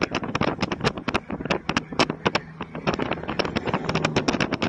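Wind buffeting the microphone of a camera filming from a moving vehicle, heard as a dense, irregular crackle over a steady low vehicle rumble.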